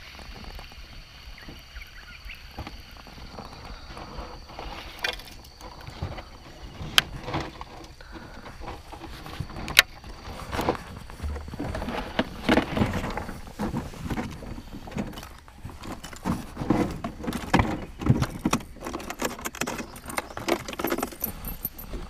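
Fishing tackle being handled in a small boat: scattered clicks, knocks and light jingling of the rod, reel and lure, getting busier in the second half, with a few sharper knocks.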